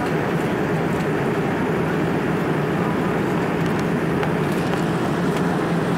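Steady cabin noise of a Boeing 787-9 airliner at cruise: an even rush of airflow and engine noise heard from a window seat.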